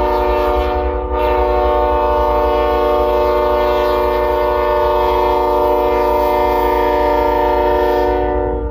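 Canadian Pacific diesel locomotive's air horn sounding a long, loud multi-tone chord, with a brief dip about a second in, as the locomotive approaches. The horn cuts off near the end.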